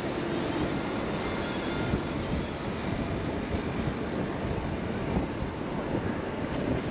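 Steady outdoor street noise: a constant low rumble with hiss, without clear single events.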